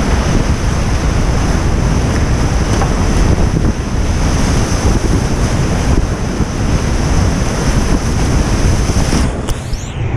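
Steady roar of whitewater rapids heard from a kayak running them, with heavy rumble of water and wind on the camera's microphone; the sound turns briefly muffled about nine seconds in.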